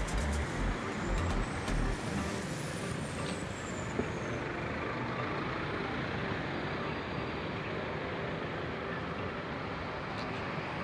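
Music with a heavy bass beat stops about two seconds in, leaving a steady hiss and rumble of background noise.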